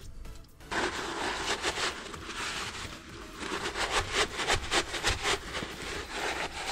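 Scrubbing the milling machine's gearbox housing to clean out old oil: a steady hissing scrub from about a second in, turning into quick back-and-forth strokes, about four or five a second, in the second half.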